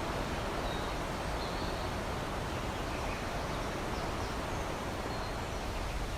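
Outdoor ambience: a steady rushing noise with a few faint, short, high bird chirps scattered through it.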